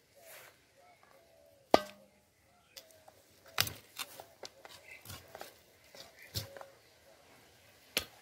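Raw chicken being cut up on a curved boti blade: a series of sharp cracks and knocks as the meat and joints are cut. The loudest comes about two seconds in, with a short low ring after it.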